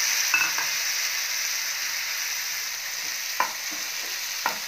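Freshly added chopped tomatoes sizzling steadily in hot mustard oil in a nonstick frying pan while a spatula stirs them. The spatula knocks sharply against the pan three times: shortly after the start, past the three-second mark, and near the end.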